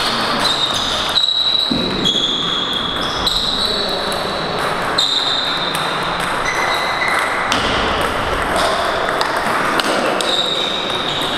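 Table tennis rallies on several tables at once: balls clicking off bats and tables at an irregular pace, many hits ringing briefly in a high ping.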